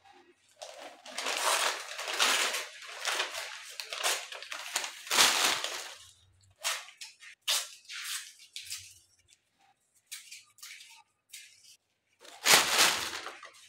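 Papers rustling and crinkling as they are handled and sorted. The sound comes in irregular bursts, dense for the first several seconds, then sparse, with the loudest rustle near the end.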